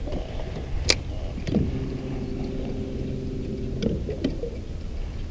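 An electric trolling motor hums steadily for about two seconds, starting and stopping abruptly, over a low rumble. A sharp click comes about a second in.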